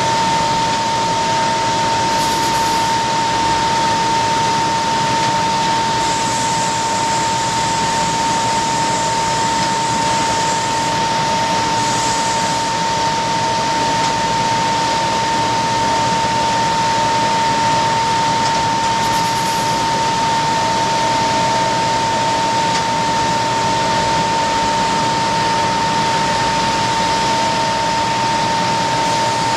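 Kundig top-and-bottom wide-belt sanding machine running: a steady, even rush of noise with a constant whine that holds at one pitch.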